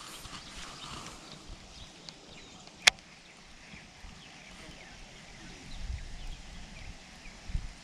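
Quiet outdoor ambience with one sharp click about three seconds in, and a few low rumbles near the end.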